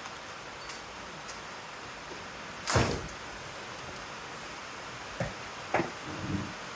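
Clatter and knocks of metal parts and tools while a power supply unit is taken apart to free its transformer. There is one loud clatter about three seconds in and a few lighter knocks near the end, over a steady hiss of heavy rain.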